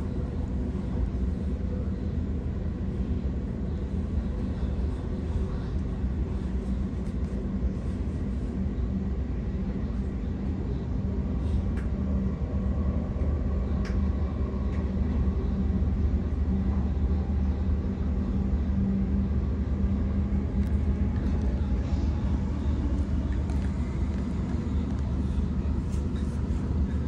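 Cabin noise of a Sydney Trains Waratah B-set electric train running: a steady low rumble of wheels on rail with an even hum, a little louder in the second half.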